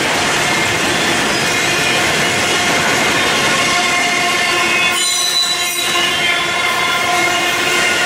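Freight train cars rolling past, their steel wheels squealing against the rails in several steady high tones over the rolling noise of the wheels.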